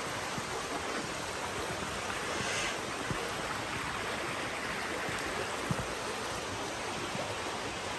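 Steady rushing of stream water, an even hiss with no breaks.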